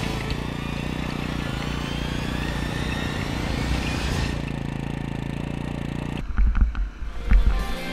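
Motorcycle engine running steadily on a rough dirt trail. About six seconds in it gives way to irregular low thumps.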